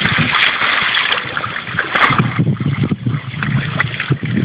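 Weimaraner splashing through shallow water, its legs churning and slapping the surface: heavy splashing for the first two seconds or so, then lighter sloshing as it wades.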